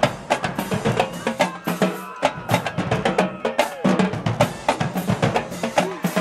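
Marching band drumline playing a fast cadence: snare drums and bass drums hitting in a dense, driving rhythm.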